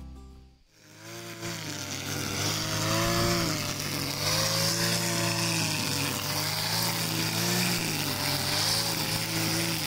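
Brush cutter's engine running as it cuts tall grass, its pitch rising and falling with the load. It comes in about a second in, just as guitar music fades out.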